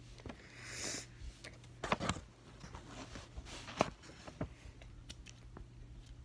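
Small handling sounds of someone working at a desk: a brief rustle, then scattered light knocks and clicks, the sharpest near the two-second mark and a little before four seconds, over a steady low hum.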